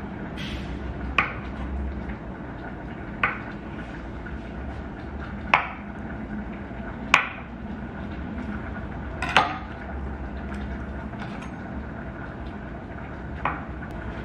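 Kitchen knife cutting through a block of tofu and knocking on a wooden cutting board, about six sharp knocks at uneven intervals.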